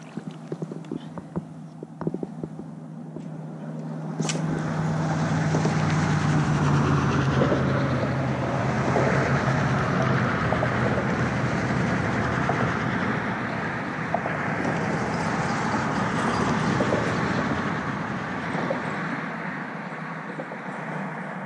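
Loud road traffic: a continuous rush of tyre and engine noise that swells about four seconds in. A steady low engine hum is strongest through the first half, and the noise eases off near the end.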